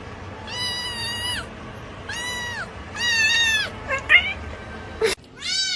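A cat meowing four times: high, drawn-out calls, with a short sharp noise between the third and fourth meow.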